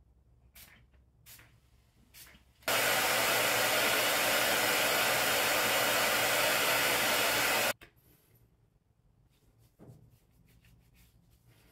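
A couple of short spritzes from a pump spray bottle of sea salt hair spray. Then a handheld hair dryer runs steadily for about five seconds and cuts off suddenly.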